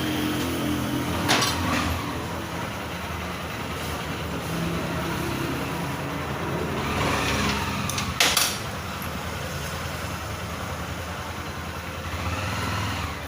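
Tool work on a motorcycle engine's magneto rotor nut: two sharp metallic clicks about seven seconds apart over a steady machine hum.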